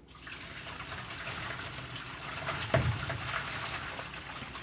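A steady rushing hiss of liquid, like water running or pouring, with one short low thump about two-thirds of the way through.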